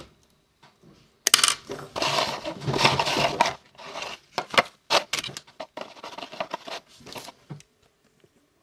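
Handling noise from fingerboard trucks and their packaging: a stretch of dense rustling starting about a second in, then scattered clicks and light metallic clinks.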